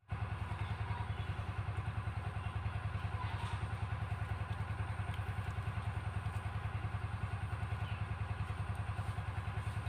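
A small engine running steadily, a low hum with a fast, even pulse.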